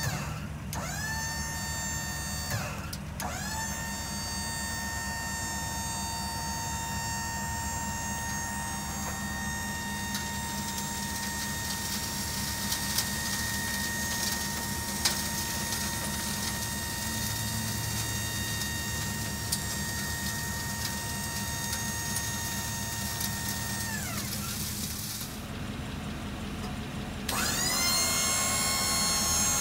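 Electric-hydraulic pump motor of a dump truck's bed hoist running with a steady whine, driving the hoist cylinder. It spins up about a second in, cuts out briefly and restarts, runs steadily, winds down near the end, then starts again a few seconds later, louder.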